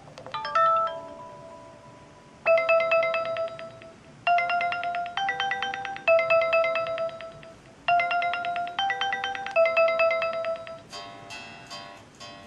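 BQ Aquaris E4.5 smartphone's stock ringtones playing one after another: a quick run of notes, then one ringtone's short melody played twice over, then a different, busier ringtone starting near the end.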